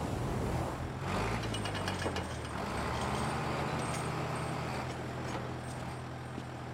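For about a second a burning oil well roars under water jets. Then a Caterpillar bulldozer's diesel engine runs steadily, rising slightly in pitch just after it starts, with light metallic clinks over it.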